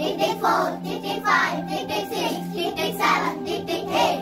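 A group of children chanting "tick, tick, tick" together in a steady rhythm: a spoken countdown timing a classmate's turn. A steady low hum runs underneath.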